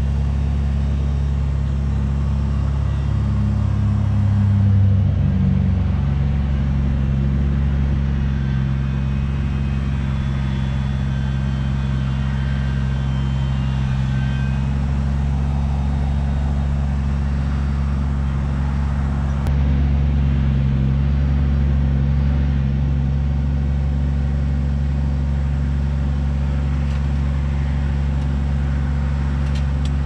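Kubota BX23S tractor-loader-backhoe's three-cylinder diesel engine running steadily while the backhoe digs a trench. It grows louder briefly about five seconds in and again a little around twenty seconds in.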